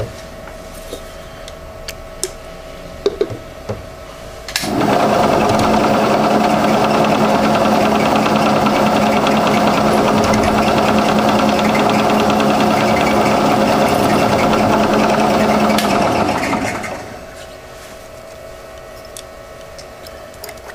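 Milling machine spindle starting abruptly and running steadily as a drill bit bores a hole through a metal lathe-chuck backing plate, then shutting off and winding down after about twelve seconds.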